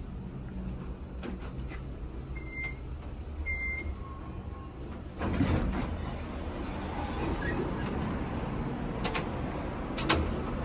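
Otis elevator car travelling with a steady low hum and two short beeps, then arriving: a loud surge of machinery noise, a two-note falling chime, and the doors sliding open, with sharp clicks near the end.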